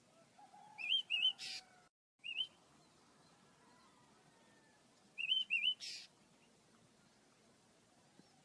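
Pet birds chirping: two groups of short, quick wavy chirps, about a second in and again about five seconds in, each followed by a brief hissy burst.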